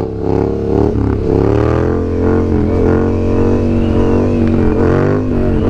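Yamaha MT-07's parallel-twin engine with an aftermarket M4 exhaust, pulling under throttle while the bike is ridden on a wheelie. The engine note climbs over the first couple of seconds, then holds steady.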